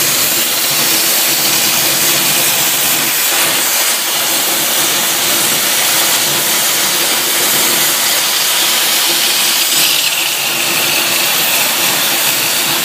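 A cutting torch on a CNC cutting machine hissing steadily as it cuts through thick steel plate, with a slight change in tone about ten seconds in.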